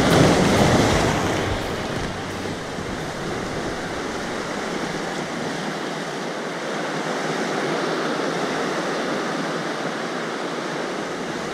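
Sea surf breaking and washing over shoreline rocks, with some wind on the microphone. A bigger wave surges in about the first second, then the wash settles to a steady rush.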